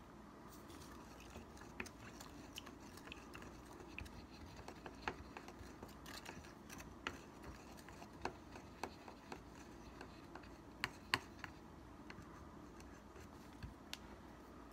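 Faint, irregular clicks and light taps of a paintbrush mixing paint in a small glass jar.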